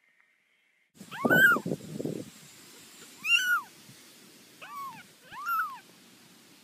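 Small tabby kitten mewing four times, each short high mew rising then falling in pitch, starting about a second in. A louder low muffled noise sits under the first mew.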